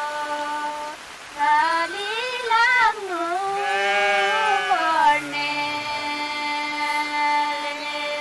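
Unaccompanied female voice singing a Nepali herders' folk song in long held notes, with wavering slides between them and short breaths between phrases.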